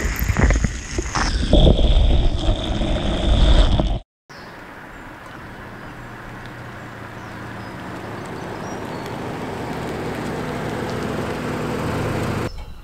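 Loud rumbling and knocks close to the microphone, cut off abruptly about four seconds in. Then a car drives slowly up across a tarmac yard, its engine and tyres growing steadily louder over about eight seconds.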